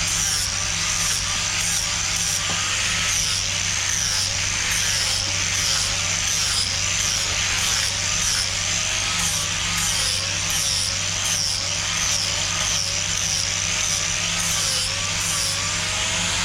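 Power sander running on an elm carving, its motor whine rising and falling in a steady rhythm as it is worked over the wood.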